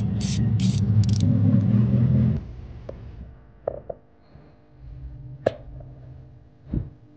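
Tool work on an MG5's brake caliper bolts: rhythmic rasping strokes, about two to three a second, over a steady low hum that stops abruptly a couple of seconds in. A few sharp metallic knocks follow.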